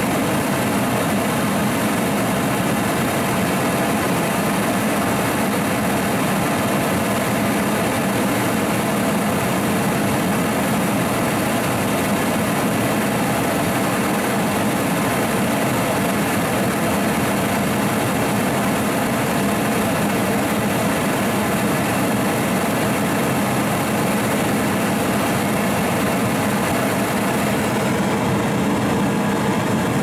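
Homemade venturi propane forge burner, its jet made from a 0.8 mm welding nozzle, running with a steady roar as its blue flame plays on a steel rod. Near the end the high hiss in the roar thins slightly.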